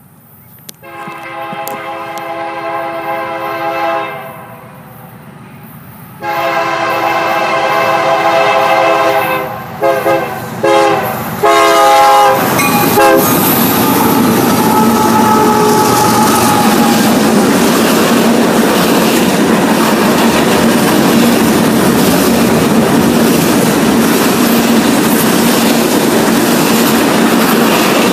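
Multi-chime air horn on three Union Pacific diesel locomotives sounding two long blasts, a short one and a final blast: the long-long-short-long signal for a grade crossing. About 12 seconds in, the locomotives pass with a loud engine drone, and the freight cars follow with steady rumbling and clickety-clack of wheels over rail joints.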